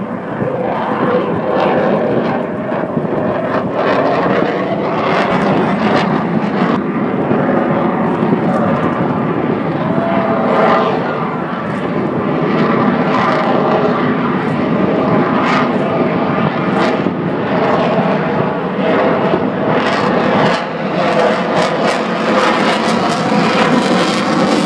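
Aircraft flying over an air show: a loud, continuous engine noise that rises and falls only slightly, with scattered short clicks over it.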